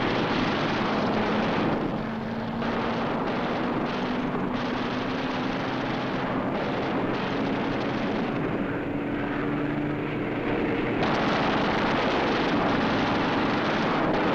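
Propeller fighter planes' piston engines droning steadily over a dense rushing noise, the engine note climbing slowly in pitch. The sound grows slightly louder and fuller about eleven seconds in.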